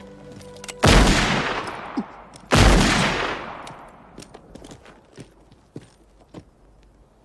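Two loud gunshots about a second and a half apart, each followed by a long echoing decay. A few faint clicks and knocks come after them.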